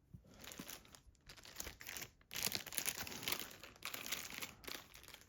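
Shipping package being opened by hand: wrapping crinkling and tearing in irregular rustles, busiest from about halfway in.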